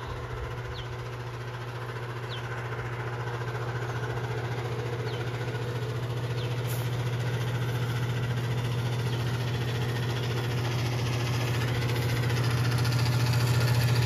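A steady low engine or motor hum, growing gradually louder.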